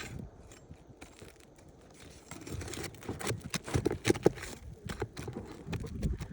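A pry bar scraping and clicking under a laminate roof shingle as its nails are worked loose, the shingle crackling as it is lifted. Quiet for about the first two seconds, then a run of sharp clicks and scrapes.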